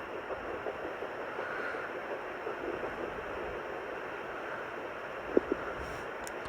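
Handheld fetal Doppler monitor giving out steady hiss and static as its probe is held against the belly at 8 weeks of pregnancy. Two sharp clicks come about five seconds in.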